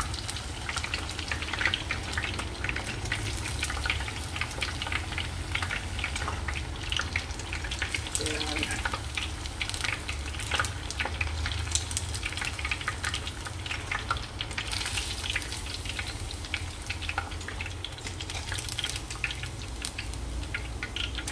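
Tofu slices deep-frying in hot oil: a steady crackling sizzle.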